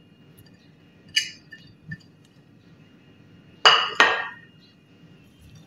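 Glass bowls clinking: a light clink about a second in, then two sharper knocks with ringing near four seconds as a glass bowl is set down on the counter.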